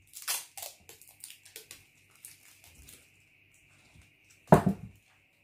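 Paper pattern pieces and a roll of adhesive tape being handled on a cloth-covered table: a run of short rustles and crinkles, then a heavy thud about four and a half seconds in.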